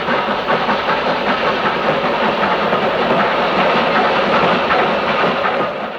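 Steam train running along the line, with a fast, steady clatter of wheels on the rails.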